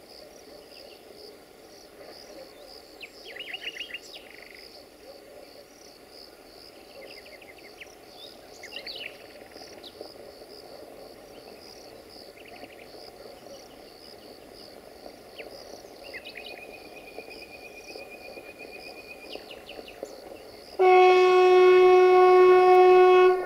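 Insects chirping steadily in a pulsing rhythm, with a bird calling now and then. About 21 s in, the approaching LDE2100 diesel locomotive sounds its horn loudly, one steady tone held for about two and a half seconds.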